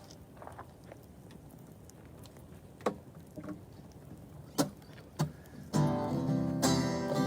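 A quiet stretch broken by a few sharp clicks, then acoustic guitar strumming starts near the end, opening the next song.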